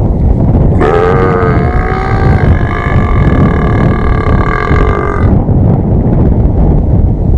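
A man's long, drawn-out burp, held for about four and a half seconds: it wavers at first, then holds steady before cutting off. Heavy wind rumble on the microphone lies under it.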